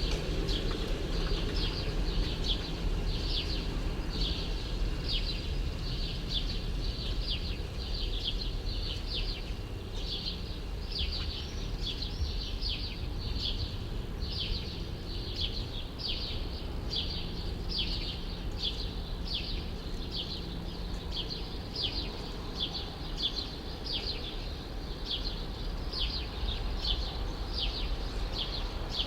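A small bird chirping over and over in short sharp notes, about two a second, against a steady low rumble of city background noise.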